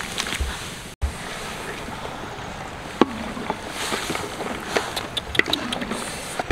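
Pieces of goose meat tipped into a large wok of steaming water, then a wooden paddle stirring the pot, the liquid sloshing with scattered knocks and clicks.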